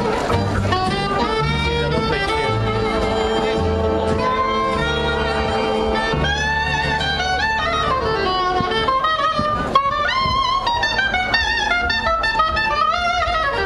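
Live jazz band playing dance music: brass and saxophone lines over a steady bass line.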